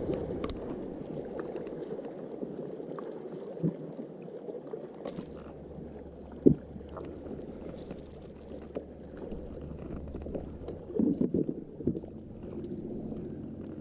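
Handling noises on a kayak as a just-landed northern pike is worked free in the landing net and tangled line: scattered light knocks and rustles over a steady low hiss, with one sharp knock about six and a half seconds in and a short run of thumps near the end.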